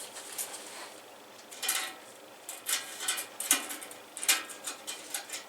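A handful of light clicks and clinks from small hard objects, such as tools or metal parts, being handled. They come irregularly, about eight in all.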